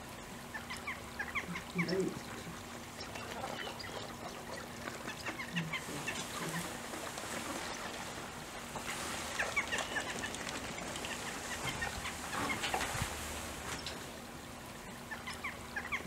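Waterfowl calling on a wetland: many short, overlapping higher calls from a mixed group of birds, with a few deeper calls scattered through, over a steady background.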